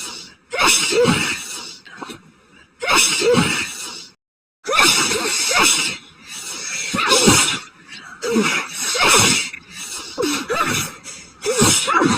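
A woman sneezing over and over in a sneezing fit: about half a dozen loud sneezes, each about a second long, with short breaths between.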